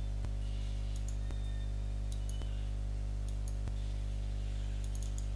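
Several computer mouse clicks about a second apart, placing the points of an outline, over a steady electrical hum.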